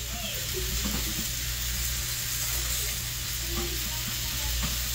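Food sizzling in a frying pan on the stove: a steady, even hiss.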